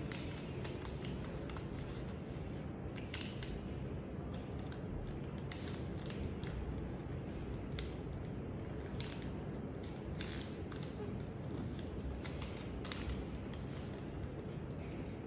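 A sheet of origami paper being folded and creased by hand on a glass tabletop: irregular crisp rustles and short scrapes of paper, over a steady low background noise.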